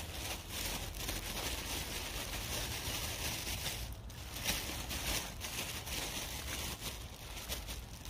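A steady rustling hiss full of small crackles, over a low rumble, with a short dip about four seconds in.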